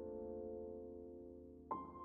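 Soft background piano music: a held chord slowly fading, with a new chord struck near the end.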